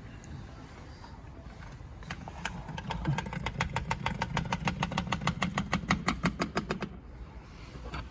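Windshield cut-out winder reeling in the fiber cutting line: a fast, even run of clicks, about seven a second, over a low hum, starting about two seconds in and stopping about seven seconds in.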